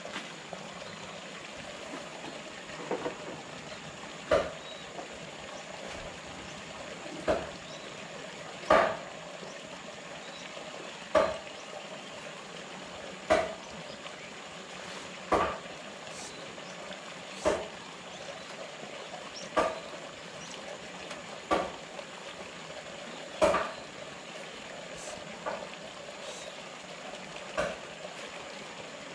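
Steady running-water noise, with a short, sharp sound repeating about every two seconds over it.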